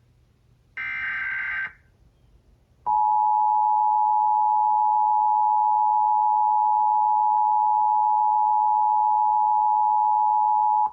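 Emergency Alert System broadcast signalling: the last of the three raspy SAME header data bursts about a second in, then, after a short gap, the EAS two-tone attention signal (853 and 960 Hz together) held steady for about eight seconds and cut off abruptly. The attention signal marks the start of an EAS alert message, here a required monthly test.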